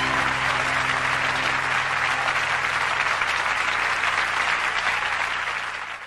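Audience applauding at the end of a live song recording, with the song's last held chord dying away in the first second or so; the applause fades out near the end.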